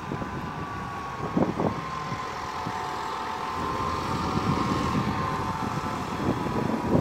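Mercedes-Benz Citaro city bus driving past, its engine and a thin high whine growing louder as it comes closest and easing off slightly near the end.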